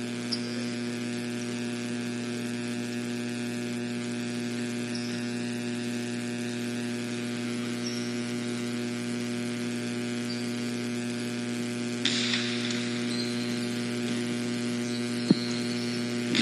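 Steady electrical hum with a buzzy stack of overtones, with a short burst of hiss about twelve seconds in and a single click near the end.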